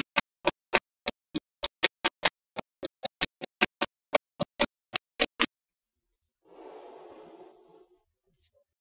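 Small neodymium magnet balls snapping into place one cluster after another: a quick run of sharp clicks, about three to four a second, that stops about five seconds in. A faint rustle lasting about a second follows near the end.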